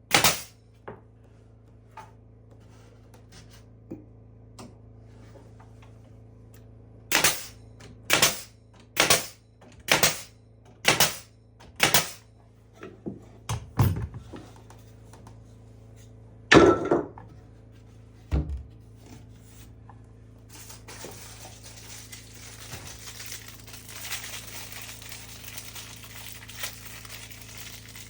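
A string of sharp knocks in a small room, six of them about a second apart, then a few lighter taps, a heavier thud and a low thump. After that comes a steady rustling hiss.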